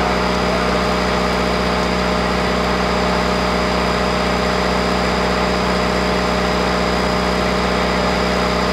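An engine idling steadily, an even hum that holds the same throughout.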